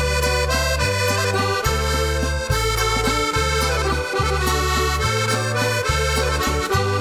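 Accordion music, with held chords over a steady bass line whose note changes a little more than once a second.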